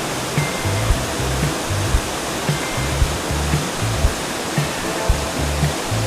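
Steady rushing of a large waterfall, mixed with background music that has a low bass beat about twice a second.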